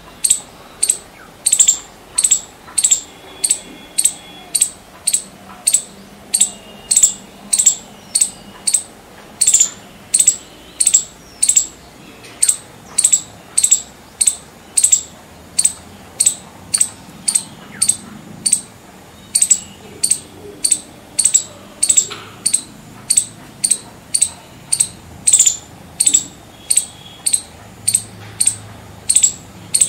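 Northern palm squirrel (five-striped palm squirrel) calling: a steady series of sharp, high chirps, about two a second.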